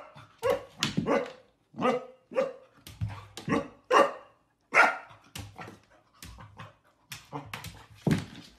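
Golden retriever puppy barking at its own reflection in a mirror: a string of short, high barks, roughly two a second, with uneven pauses.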